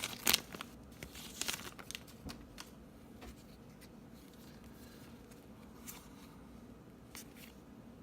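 Baseball card pack wrapper crinkling in the first two seconds, then quiet handling of the cards with a few soft clicks.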